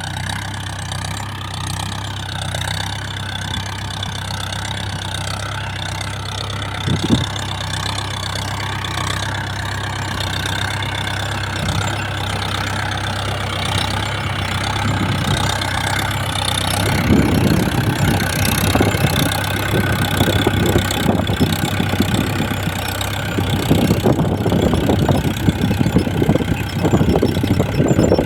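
Mahindra Yuvo 415 DI tractor's diesel engine running at a steady speed while pulling a two-bottom reversible plough through hard soil. A rough rattling crackle joins the engine hum over the second half and grows louder.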